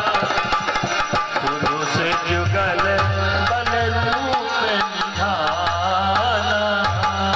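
Devotional music: harmonium accompaniment with frequent hand-drum strokes under a wavering, wordless sung melody.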